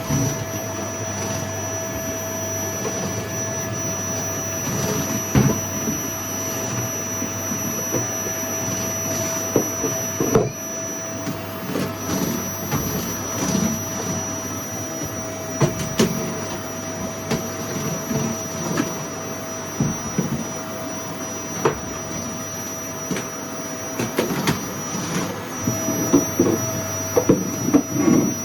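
Household vacuum cleaner running steadily with a constant motor whine, with scattered knocks and clatters as it is worked over the floor, busier near the end.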